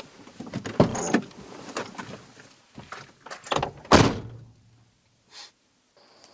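A car door being opened, with clicks and shuffling as someone climbs out, then shut with one loud thud about four seconds in.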